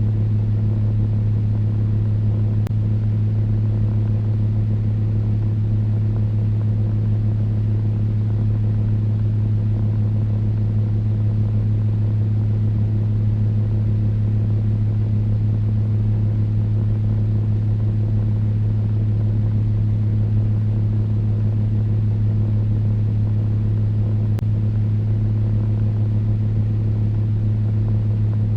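Electric fan running steadily: a constant low motor hum with a few higher overtones over an even rush of moving air.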